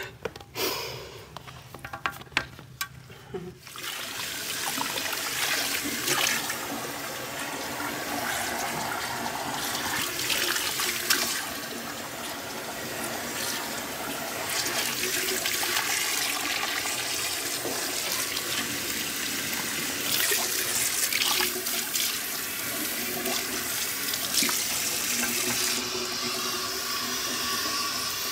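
A few clicks and knocks, then about four seconds in water starts running steadily from a tap into a sink and keeps running.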